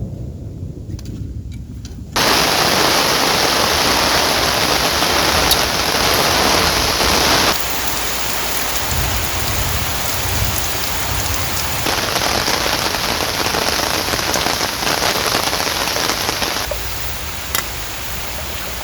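Heavy rain pouring down in a steady hiss. It starts abruptly about two seconds in and changes in strength suddenly a few times.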